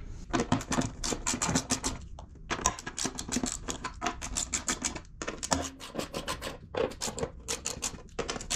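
Hand ratchet with an 8mm socket clicking in quick runs while backing out the screws that hold a plastic fender housing, with a few short breaks between runs.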